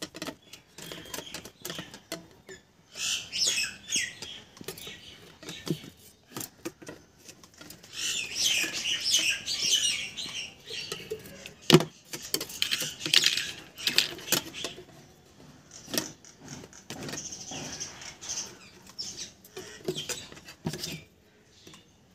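Thin aluminium wire being handled and twisted by hand, with scattered small clicks and rustles and one sharper click about halfway through. Birds chirp in the background in quick high bursts a few seconds in and again through the middle.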